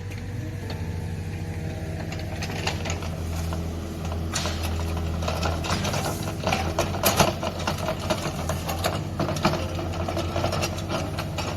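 Diesel engine of heavy earthmoving equipment running steadily, with a rising patter of metallic clanks and rattles from a few seconds in, loudest about seven seconds in.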